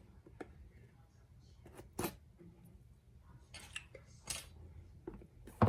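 Scattered light clicks and scrapes of a smartphone retail box being handled and worked open by hand, one sharper click about two seconds in.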